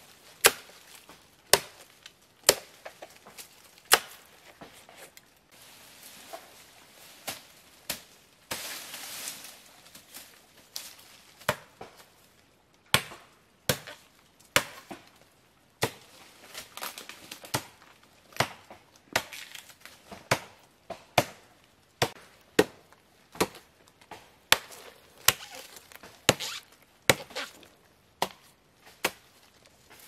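Repeated chopping with a blade: sharp single strikes about once a second, coming a little quicker in the second half, with a short stretch of softer noise about nine seconds in.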